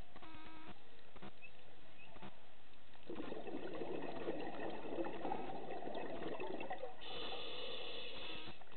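Underwater recording: a scuba diver's exhaled bubbles gurgle and crackle for about four seconds, starting about three seconds in, then give way near the end to a short, higher-pitched hiss, typical of a regulator.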